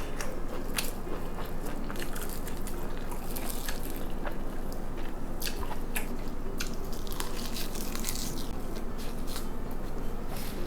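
A person eating close to the microphone: steady chewing of food with crunches and many small, irregular clicks.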